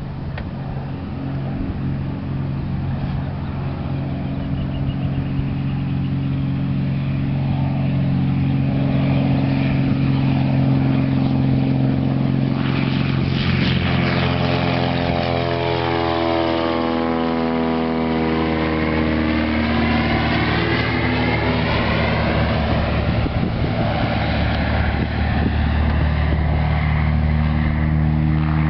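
Piper PA-25 Pawnee's single piston engine and propeller on its takeoff run, a steady engine note growing louder as the plane rolls in and lifts off. About 14 seconds in it passes close and the pitch drops, with a sweeping, flanging sound as it climbs away.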